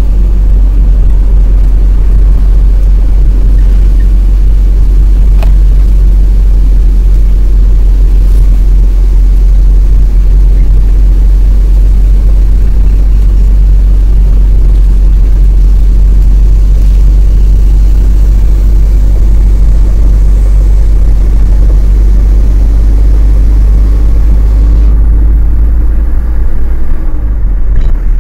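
Lorry engine and drivetrain running under way with a heavy, steady low rumble, heard from inside the cab. The engine note climbs gently through the second half.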